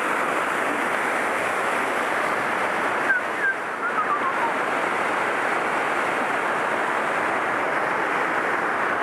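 Steady rush of a small waterfall cascading over rocks on a forest stream, an even hiss of falling whitewater.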